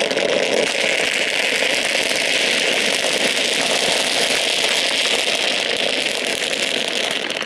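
A batch of firecrackers going off in a rapid, continuous crackle of many small pops, cutting off shortly before the end.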